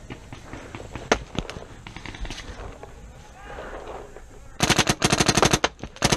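Paintball marker firing a rapid, evenly spaced string of shots, well over ten a second for about a second, near the end, with a few more shots just after. Scattered single shots pop now and then before it.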